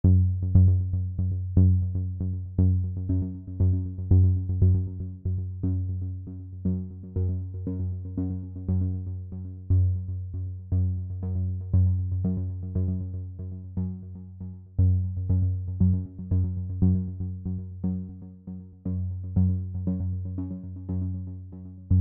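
Electronic background music: short, regularly repeated synthesizer notes over a steady held bass, giving a steady beat.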